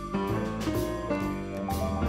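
Instrumental background music: held chords and melody notes over drum hits.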